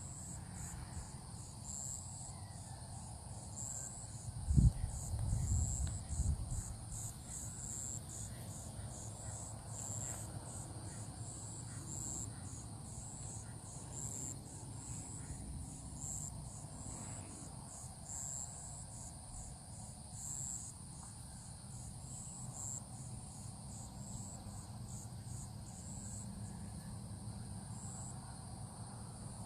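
Insects chirping in a steady, high, pulsing chorus, with a few low thumps about four to six seconds in.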